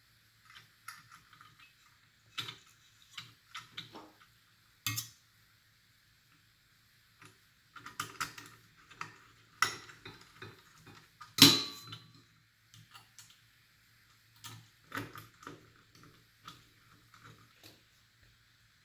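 Irregular clicks, taps and small metallic clinks of computer hardware being handled and fitted into a small PC case, with the loudest knock about eleven and a half seconds in.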